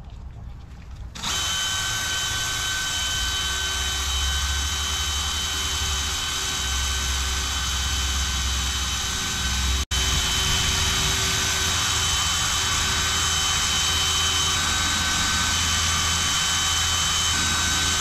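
DeWalt cordless drill spinning a foam polishing pad, running steadily as it buffs compound on a primed plastic door handle. It starts about a second in and breaks off for an instant about halfway through.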